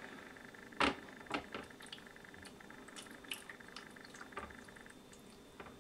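Water poured from a plastic measuring jug into the plastic water tray of an electric table grill, a faint pouring with scattered small ticks. One sharp knock about a second in is the loudest sound, followed by a few lighter clicks.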